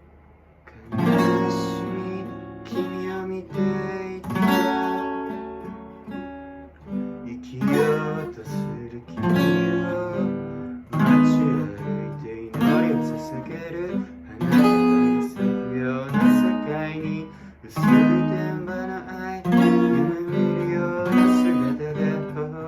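Acoustic guitar playing, strummed chords that start about a second in and change every second or so.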